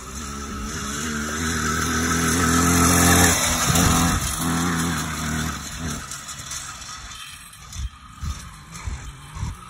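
80cc two-stroke bicycle engine running as the motorized bike rides up and past, getting louder until about three seconds in, then fading away. A few low thumps near the end.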